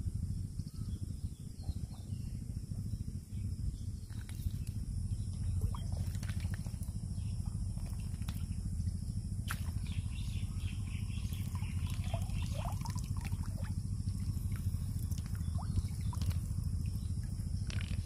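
Water splashing and dripping as a mesh fish trap full of fish is lifted and handled in shallow water, with scattered small splashes and clicks over a steady low rumble.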